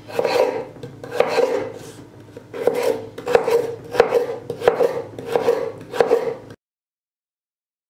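Kitchen knife chopping peeled raw potato on a wooden cutting board, a dozen or so separate knocks of the blade through the potato onto the board at an uneven pace. The sound cuts off suddenly near the end.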